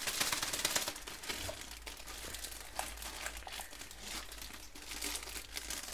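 Clear plastic packaging bag crinkling and crackling as it is worked open by hand. The crackling is densest in the first second, then continues as scattered crackles.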